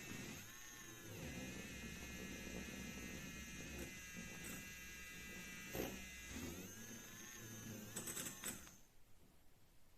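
Small battery motor of a handheld milk frother whirring as its whisk spins in cold milk, the pitch dipping briefly twice. After a few clicks it stops about nine seconds in.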